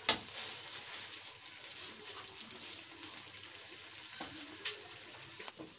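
Onions and capsicum frying in sauce in a steel kadhai, a steady sizzle. A sharp metal clink of the slotted steel spoon against the pan comes right at the start, with a few lighter taps later.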